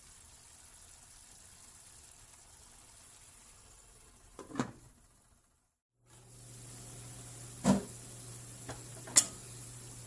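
A stainless steel pan of ground pork and bitter gourd cooking on an electric stove, a low steady sizzle. Short sharp clinks of the lidded pan being handled come about halfway through and twice more, louder, near the end. The sound cuts out briefly just after the middle, and a steady low hum comes in after it.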